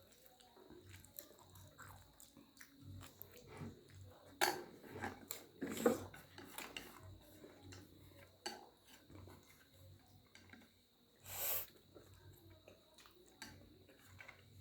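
Close-up eating sounds: chewing of buff sukuti chow mein with scattered soft clicks of utensils against dishes, and a few louder short knocks about four and a half, six and eleven and a half seconds in.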